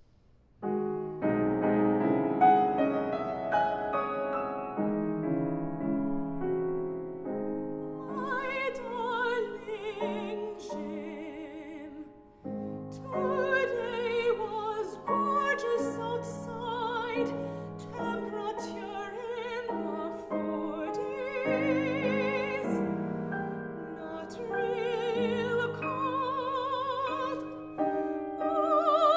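Grand piano playing a slow introduction, then an operatic soprano singing with wide vibrato over the piano from about eight seconds in, with a brief break near twelve seconds.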